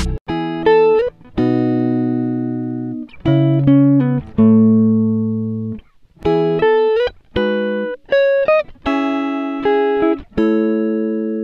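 Background music: a plucked guitar melody of single notes and short phrases, each note ringing and fading.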